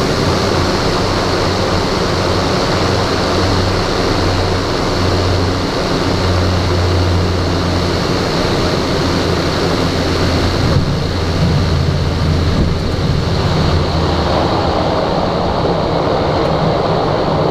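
Cessna 208B Caravan's PT6A turboprop engine and propeller heard inside the cockpit during landing: a steady loud drone with a high turbine whine. There is a brief bump about eleven seconds in, and the whine and low hum fall away near the end as power comes back.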